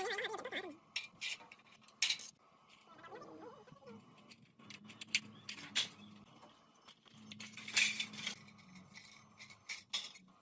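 Scattered clicks, knocks and clinks of small hard objects being handled, with a few short snatches of voice.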